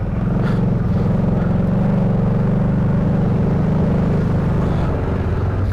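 ATV engine running at a steady throttle, a continuous even drone that eases off slightly near the end.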